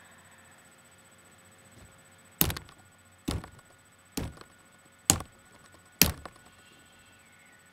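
Five loud knocks on a hard surface, evenly spaced just under a second apart, each with a short ringing tail.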